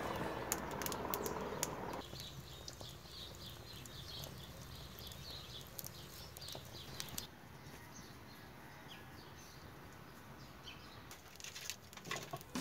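Faint crackling and ticking of a wood fire burning in a brick kiln's firebox, with a few sharper clicks near the end.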